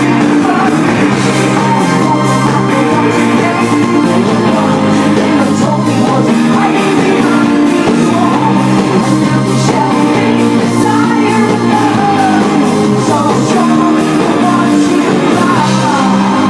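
Live rock band playing, with drums, guitars and singing, in a large hall.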